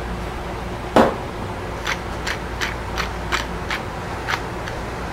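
A single knock about a second in, then a hand-twisted pepper mill grinding pepper onto raw steaks: short crunching clicks in a steady rhythm, about three a second.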